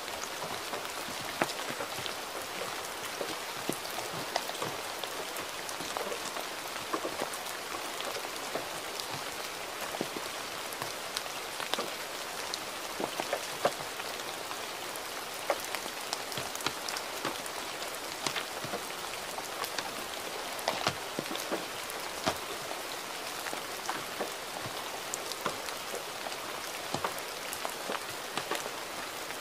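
Gentle rain falling steadily: an even hiss of rainfall with individual drops tapping at irregular moments.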